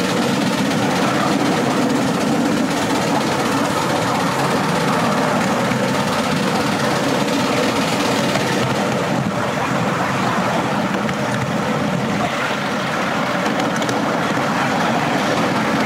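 Miniature railway train running steadily along its track, heard from on board just behind the locomotive.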